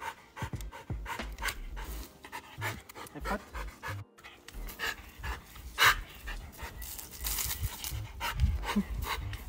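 Blue merle Australian Shepherd panting hard with its mouth open, a quick, uneven run of breaths in and out.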